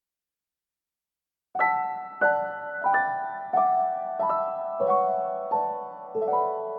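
Slow, gentle piano music that starts about a second and a half in, a new note or chord struck about every two-thirds of a second and left to ring.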